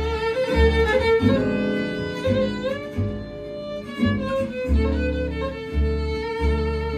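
Acoustic string band playing: a bowed violin carries a sliding melody over strummed acoustic guitars and a plucked double bass sounding a low note on each beat.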